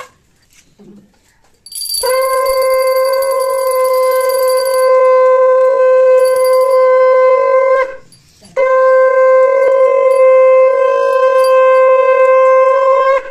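Conch shell blown in two long, steady blasts, the first starting about two seconds in and the second after a short breath about eight seconds in. A thin high ringing sounds over the start of the first blast.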